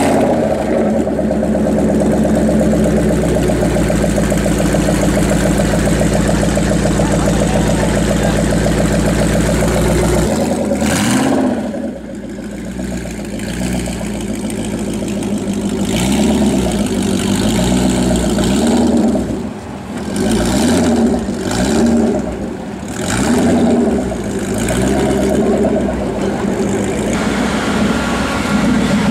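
Citroën GT concept's 5.4-litre Ford V8 idling steadily just after start-up. About halfway through it is revved repeatedly in short blips, the pitch rising and falling each time.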